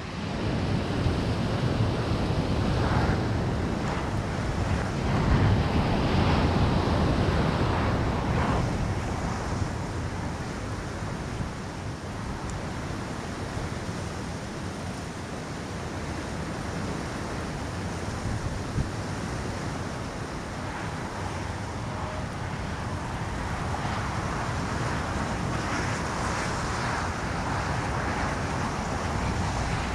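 Wind blowing over the microphone of a crashed drone's camera lying in grass, with no motor running. It gusts louder over the first several seconds and again near the end.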